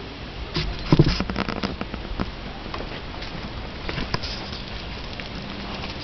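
A flurry of short, light knocks and clicks about a second in, and a few more near four seconds, over a steady hiss.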